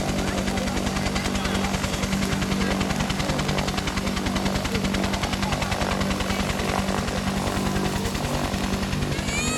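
AH-1 Cobra attack helicopter running on the ground: a steady low turbine hum with the fast, even beat of its two-blade rotor. A whistling sound rises and falls near the end.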